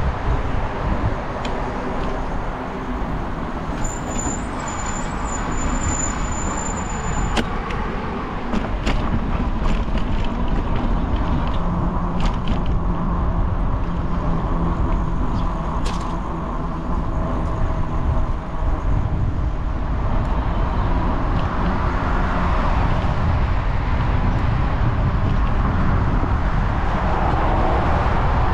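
Steady low rumble of road-vehicle noise, with a few faint clicks in the middle.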